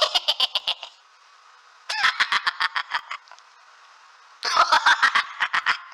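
Laughter sound effect: three bursts of rapid, high-pitched giggling, each about a second long, with a faint hiss between them.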